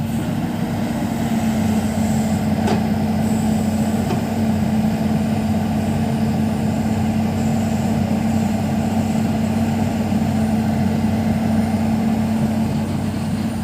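Diesel engine of a Matador ME210LC crawler excavator running steadily at an even speed, with one brief click about three seconds in.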